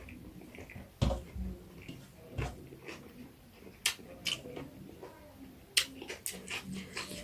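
Close-up eating sounds: chewing with irregular sharp mouth clicks and smacks, and a couple of duller knocks.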